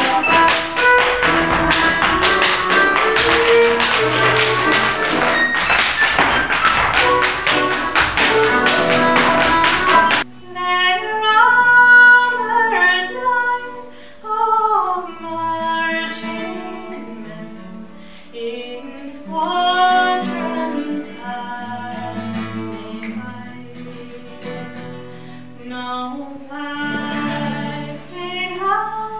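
Irish step dancers' shoes tapping rapidly over lively Irish dance music. About ten seconds in it cuts abruptly to a woman singing with an acoustic guitar.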